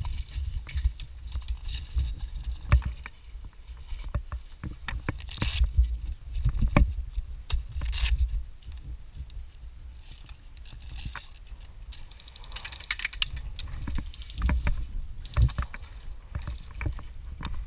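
Rustling, knocking and scuffing of a player's gear and clothing against a worn camera while moving, with irregular sharp clicks and short swishes over a low rumble.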